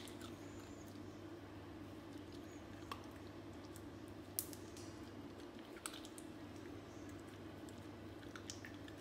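Yorkshire terrier eating food from a hand, its chewing heard only as a few faint scattered clicks over a steady low hum.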